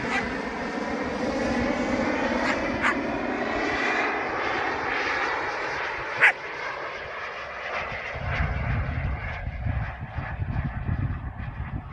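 KingTech turbine of an RC model jet running with a steady whine that sinks slightly in pitch and fades away over the second half. A single sharp click about halfway through, and an uneven low rumble near the end.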